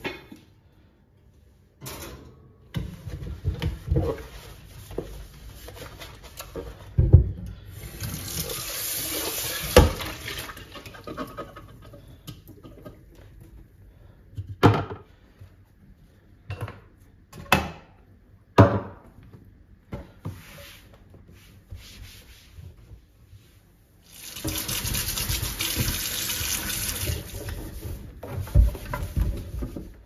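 Washing up at a stainless steel kitchen sink: the tap runs in two stretches of a few seconds each, with knocks and clinks of dishes and utensils in between.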